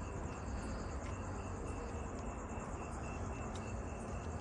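Crickets chirping, a steady run of short evenly spaced chirps, over a low rumble.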